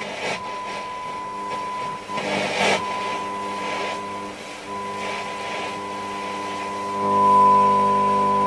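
The Hacker Hunter RP38A transistor radio's loudspeaker is giving a steady test tone from a signal generator while the FM section is being aligned, with brief swishes of hiss. About seven seconds in, the tone comes up louder with a buzzy edge as the set peaks on the signal.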